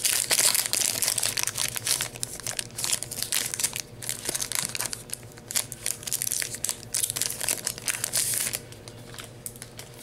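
A Yu-Gi-Oh trading card booster pack's foil wrapper being crinkled and torn open by hand, a dense run of crackling that dies down near the end.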